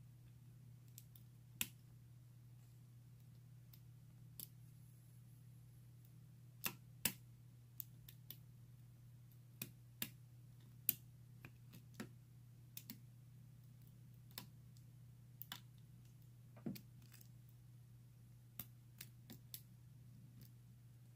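Faint, irregular clicks of a lock pick and tension tool working the pins inside a brass padlock during picking, over a steady low hum.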